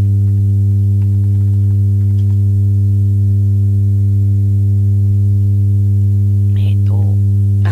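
Loud, steady deep hum, a low electrical 'boon' drone that sits under the whole recording.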